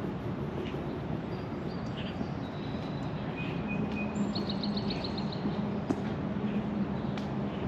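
Songbirds chirping over a steady low rumble of city background noise, with a low hum joining in a few seconds in. Near the middle a bird gives a quick run of about eight high notes.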